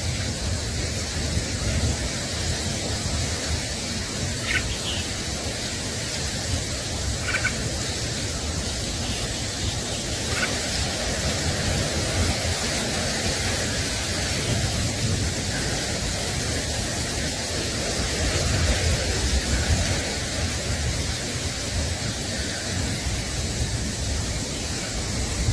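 Steady rushing noise with wind buffeting the microphone, and three faint short bird calls in the first ten seconds or so.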